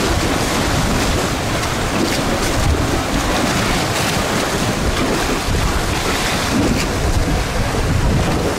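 Wind buffeting the microphone: a loud, steady rushing noise with a rumbling low end.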